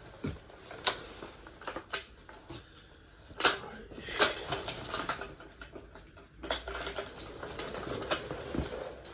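Scattered clicks, clinks and knocks of hard objects being handled, with a low hum coming in about two-thirds of the way through.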